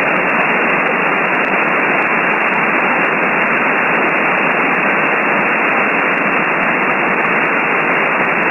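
Steady shortwave hiss from an RTL-SDR receiver tuned to upper sideband on the 20-metre amateur band: an empty SSB channel between transmissions, with the answering station not heard.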